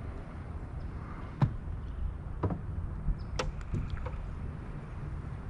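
Crappie knocking against the boat a few times as it is swung aboard on the line, the loudest knock about one and a half seconds in. A steady low rumble of wind on the microphone underneath.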